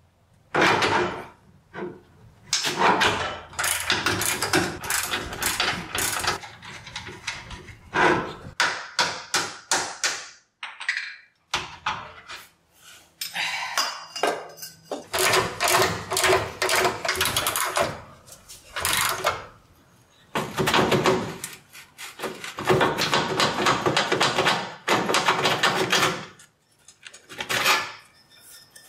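Hand-tool work on the 1956 Chevrolet's steel front-suspension parts: bursts of rapid, sharp metal strikes and clanks, broken by short pauses.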